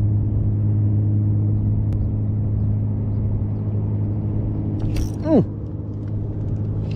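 A boat engine drones steadily, a low hum with even overtones. About five seconds in there is a sharp click, followed by a short cry that slides down in pitch.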